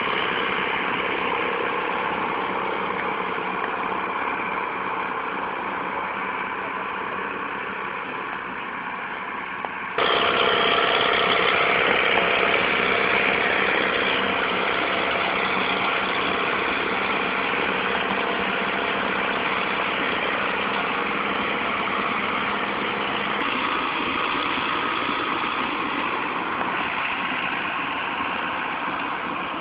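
Belarus tractors' diesel engines running steadily while pulling loaded sugarcane trailers. About ten seconds in the sound jumps suddenly louder.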